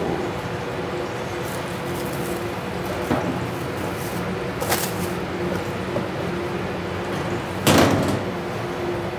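Commercial kitchen noise: a steady hum under the range hood, with a few knocks and clatters of things being handled at a counter, the loudest near the end.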